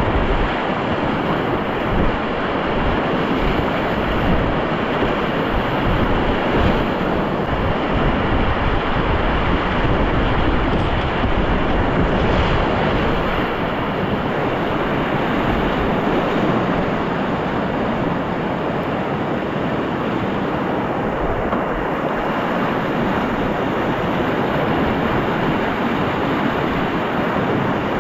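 Steady rush of whitewater rapids, with low rumbling buffeting on the microphone.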